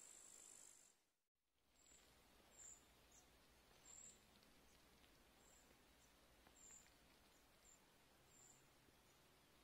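Near silence with faint outdoor ambience: a steady high-pitched insect trill that cuts off about a second in, then faint short high chirps about once a second.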